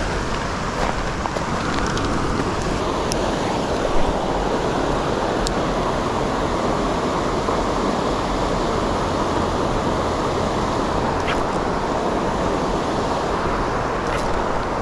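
Steady rush of fast creek water pouring over and below a dam, with a few faint ticks on top.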